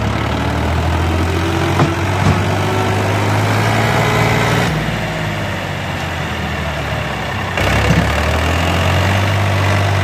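Diesel tractor engine running steadily with a low drone while pulling a loaded tipping trailer over soft mud. The sound changes abruptly about five seconds in and again near eight seconds.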